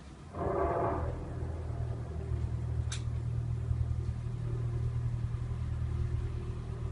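A steady, low mechanical hum that sets in about half a second in and holds on; the uploader takes it for a strange machine noise coming from the sky, with no known source. A brief brighter noise comes with the onset, and there is a single short tick about three seconds in.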